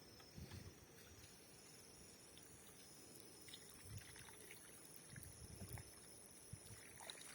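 Near silence: faint outdoor ambience with a few soft low knocks and light clicks, over a steady thin high-pitched whine.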